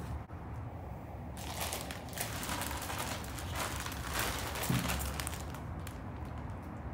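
Plastic courier mailer bag crinkling and rustling as it is picked up and handled, from about a second and a half in until about five and a half seconds, then quieter.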